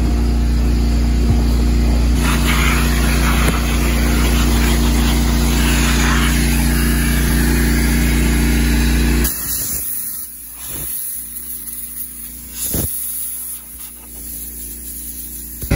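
Vacuum cleaner motor running steadily with a low hum, then cutting away about nine seconds in to a much quieter stretch broken by two sharp knocks.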